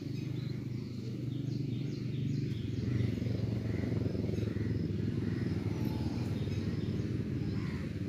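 Freshly drawn milk pouring in a thick stream from one stainless steel bucket into another: a steady splashing.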